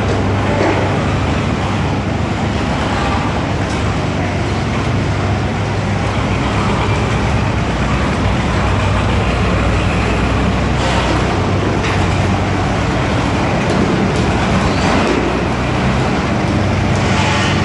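Small combination road roller (steel drum and rubber tyres) with its engine running steadily: a loud, constant low hum under a wide mechanical noise, with brief louder hissy patches about eleven seconds in and near the end.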